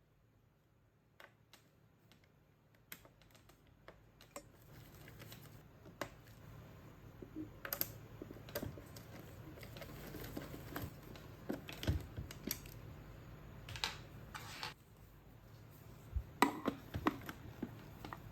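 Scattered light clicks, taps and knocks of hands handling the plastic parts of a Vax Blade VX60 cordless vacuum cleaner, sparse at first and growing busier after a few seconds.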